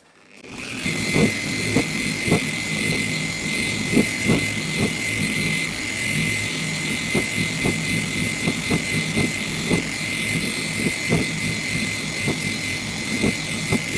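Machine polisher spinning a pad over painted bodywork on the second pass with a one-step polishing compound. It spins up about half a second in, then runs with a steady high whine and irregular low thumps, and cuts off sharply.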